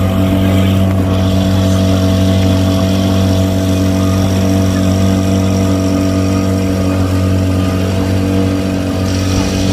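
A 25 hp Yamaha outboard motor running at a steady, even speed, pushing the boat along.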